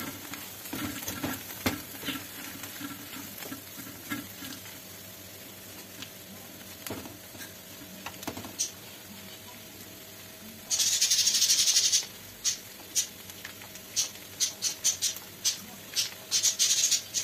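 Chopped herbs for ghormeh sabzi sizzling as they fry in an aluminium pan, stirred with a wooden spatula. A low sizzle carries light scrapes and taps at first. About eleven seconds in comes a second of loud hiss, then a run of short hissy strokes about two a second.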